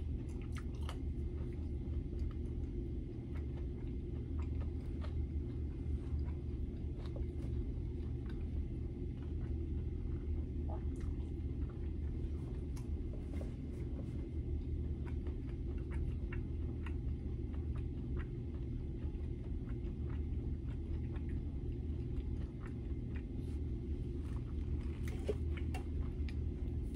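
A person chewing food, with faint scattered mouth clicks, over a steady low hum.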